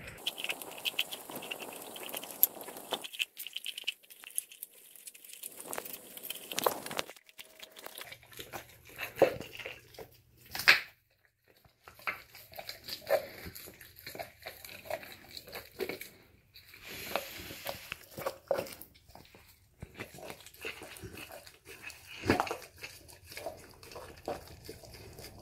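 Alaskan Malamute chewing and tearing at raw beef ribs: irregular crunching and tearing with sharp clicks, and the loudest cracks about a third of the way in.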